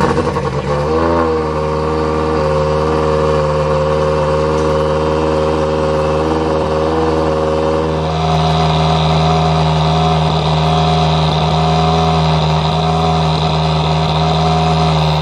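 Toyota Yaris WRC rally car's turbocharged 1.6-litre four-cylinder engine running loud at a steady, held speed, its tone shifting slightly about eight seconds in.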